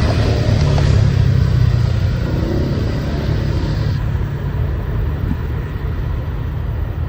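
Steady low engine rumble like a heavy diesel excavator idling, the sound that goes with the RC excavator; it eases slightly about halfway through.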